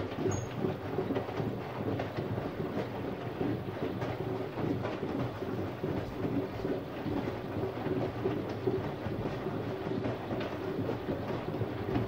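Siemens Siwamat iQ front-loading washing machine in its wash phase: the drum turns with water and laundry sloshing and tumbling inside, over a steady motor hum.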